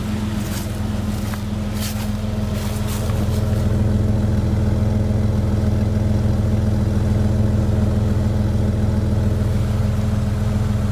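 A 2001 Jeep Grand Cherokee's engine running steadily after a fresh battery install, getting louder about three seconds in. A few light clicks in the first few seconds.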